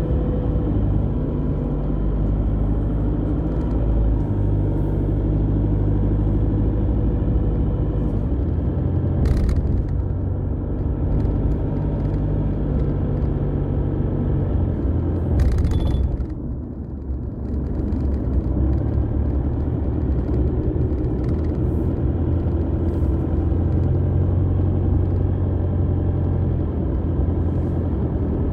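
Car engine and road noise heard from inside the cabin while driving: a steady low drone with the engine's hum, easing off briefly about two thirds of the way through, with a couple of short clicks.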